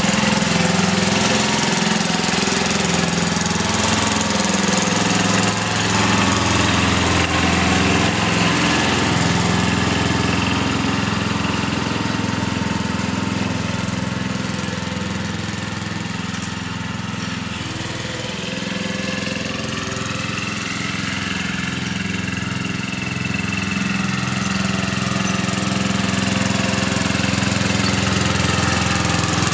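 Murray lawn tractor's engine running steadily under load while it pushes snow with a front plow blade, growing a little quieter around the middle of the stretch and then louder again.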